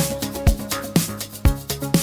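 Upbeat electronic background music with a steady four-on-the-floor beat, about two kick-drum hits a second.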